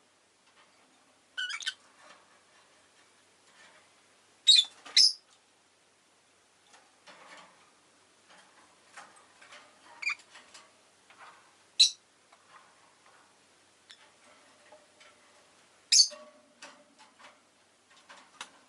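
Rosy-faced lovebird giving short, sharp, high chirps every few seconds, with faint ticking and clicking between the calls.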